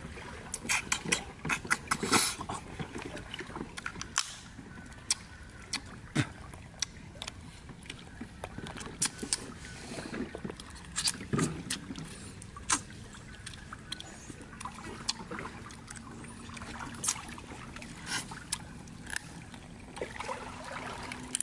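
Cooked crab shells cracked and picked apart by hand, with chewing: irregular sharp clicks and crunches, thickest in the first few seconds, over the steady trickle of a stream.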